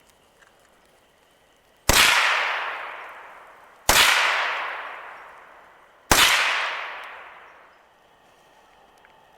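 Three .22 rimfire rifle shots about two seconds apart, each a sharp crack followed by a long echo that fades out over about two seconds.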